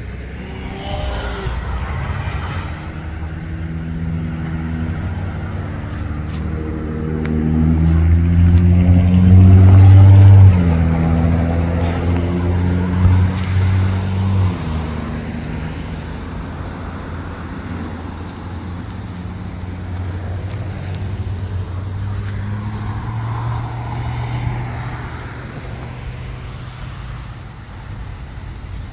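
Road traffic at an intersection: a motor vehicle's engine grows louder and peaks about ten seconds in as it passes close, then fades into quieter passing traffic, with another vehicle going by later.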